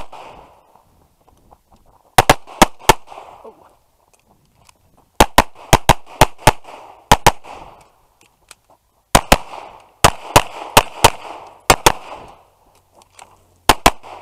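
Tanfoglio Stock 2 pistol firing rapid strings of shots, with several quick shots in each burst and pauses of one to two seconds between the four bursts.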